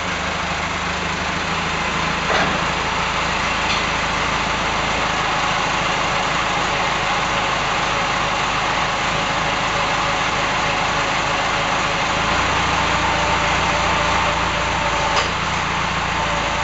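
Farm tractor's diesel engine running steadily while it works a front loader, its note changing about three-quarters of the way through. There are a couple of brief knocks.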